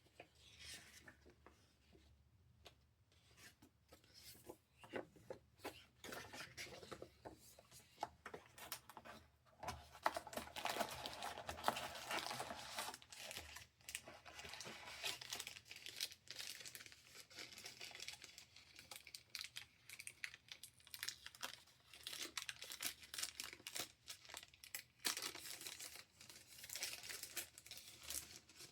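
Packaging being handled and unwrapped: wrapping crinkling and rustling with scraping and tearing, in irregular bursts that grow busier about a third of the way in.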